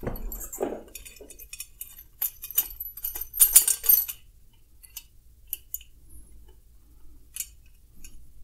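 Metal clinking and rattling as a stainless-steel beer tower column is tilted and handled, the beer hose and its worm-gear clamp knocking inside the tube. A busy run of clinks, loudest about three and a half seconds in, then a few scattered ticks.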